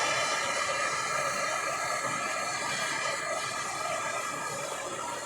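Handheld gas blowtorch burning with a steady hiss, heating the aluminium fork leg around a corroded, seized steel damper bolt to free it.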